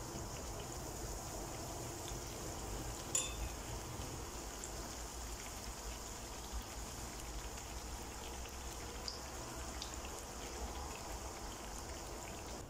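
Battered bread pakoras sizzling in hot oil in a pan: a steady crackling hiss, with one sharp click about three seconds in.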